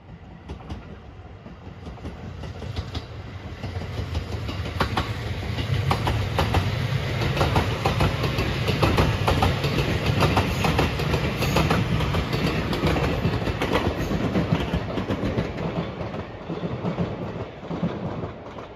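Marine Liner rapid electric train with 223-series cars passing close by, wheels clacking over rail joints over a steady rumble. It builds as the train approaches, is loudest around the middle, and eases near the end as it moves away.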